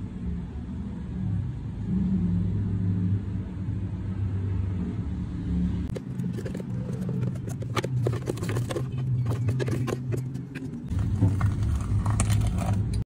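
A steady low hum runs throughout. From about six seconds in come a run of scrapes and knocks as a spatula scrapes thick blended frappe out of a plastic blender jar into a glass.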